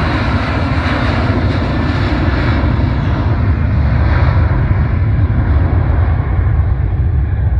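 Jet engines of a Boeing 737-800 at takeoff thrust during its takeoff roll: a steady, loud rush with a deep rumble. The sound grows duller over the last few seconds as the airliner moves away down the runway.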